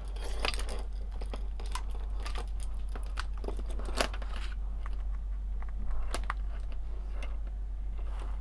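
Handling noise of small hard objects: scattered light clicks, taps and rustles, thickest in the first half, with a sharper click about four seconds in and another about six seconds in, over a steady low hum.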